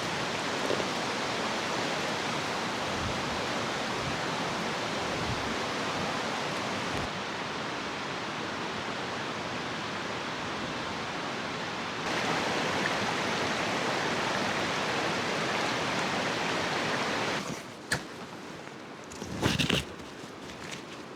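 Mountain stream rushing steadily, its level stepping up or down at cuts about seven and twelve seconds in. Near the end the water sound falls away and a click and a few close knocks follow.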